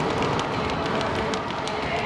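Group exercise class in full swing: workout music over a loudspeaker, with many sneakers scuffing and tapping on a wooden floor.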